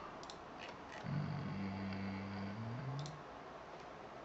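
A few light computer mouse clicks in the first second and another near three seconds. Between them a low, steady hum lasts about two seconds and rises slightly in pitch as it ends.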